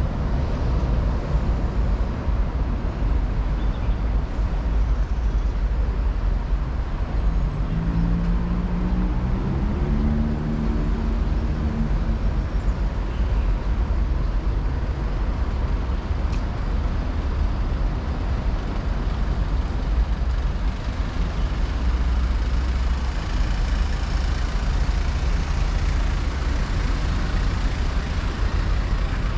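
Road traffic: a steady rumble of passing cars, buses and trucks, with one vehicle's engine rising in pitch as it speeds up about a third of the way in.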